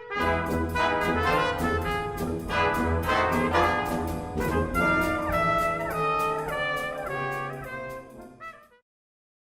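British-style brass band playing a Christmas piece, many brass parts together over a low bass line. The music fades quickly about nine seconds in and stops, leaving silence.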